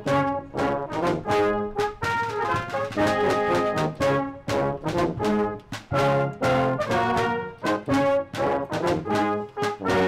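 Brass band playing full chords in short, strongly accented phrases, with sharp percussion strokes between them.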